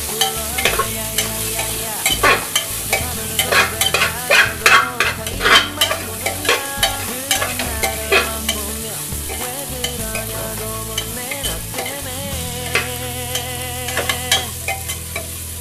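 Chopped mixed vegetables (green peas, beans, carrots, potato) frying in oil in an aluminium pressure cooker, a steady sizzle under repeated stirring and scraping strokes against the pot. The strokes come thick and fast in the first half and thin out after about nine seconds.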